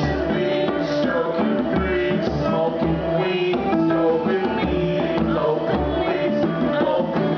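Band playing an instrumental world-beat groove, with a steady drum beat about twice a second under guitar and keyboard lines.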